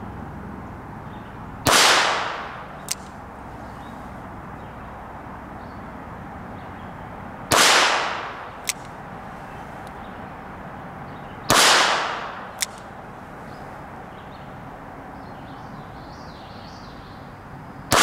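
Smith & Wesson 617 .22 LR revolver fired slowly in single action: three shots several seconds apart and a fourth right at the end, each with a short fading ring. A brief faint click sounds about a second after each shot.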